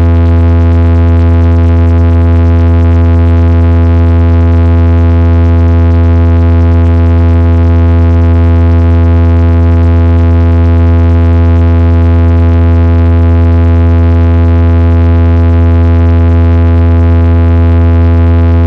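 Music: one loud synthesizer chord held steady without any change, with a heavy bass tone under many overtones.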